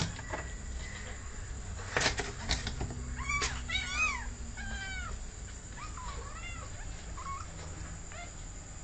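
Cat meowing: a string of short meows, each rising then falling in pitch, starting about three seconds in, with fainter ones following. A few sharp knocks just before the meows.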